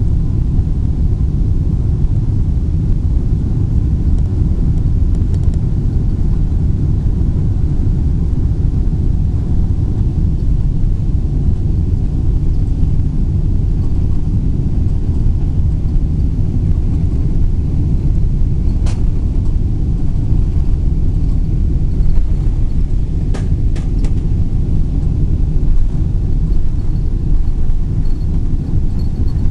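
Boeing 777-300ER's GE90 engines and runway rumble heard from inside the cabin during the takeoff roll: a loud, steady, deep noise. A few light clicks come about two thirds of the way through.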